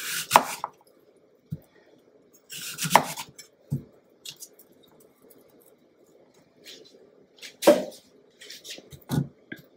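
Kitchen knife slicing through a peeled Granny Smith apple and knocking on a wooden cutting board: a handful of separate cuts and knocks, the loudest at the start, about three seconds in and near the end.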